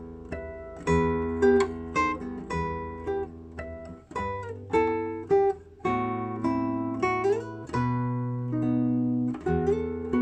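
Solo acoustic guitar playing a slow melody: single plucked notes ringing over longer-held bass notes, with a sliding note about seven seconds in.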